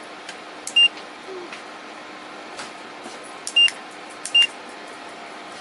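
Minthouz 2000 W PTC ceramic fan heater blowing with a steady hum and hiss while its controls give three short, high beeps (about a second in, then twice close together near the end) as the temperature setting is changed.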